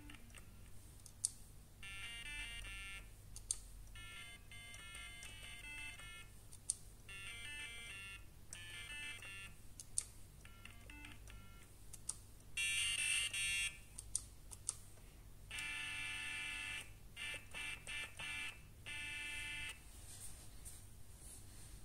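Homemade SAMD21 polyphonic synth playing short chords through its small built-in speaker, the tone changing from passage to passage as its waveform is switched. A sharp click marks each press of the wave-select button, and about halfway through comes a short, louder burst of hiss from the noise waveform.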